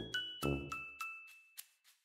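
Background music: a gentle tune of bell-like notes, about three a second, each ringing and fading, over low bass notes that drop out about halfway through.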